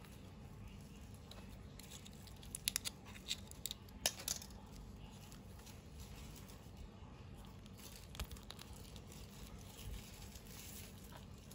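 Small plastic toy packaging being handled and torn open, with crinkles and sharp clicks that cluster about two to four seconds in and come back briefly near eight seconds.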